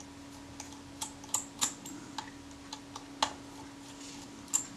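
Light, irregular metallic clicks and ticks as a pin tool works in the cap of a Kodak Retina IIC's film advance lever to unscrew it, over a steady faint hum.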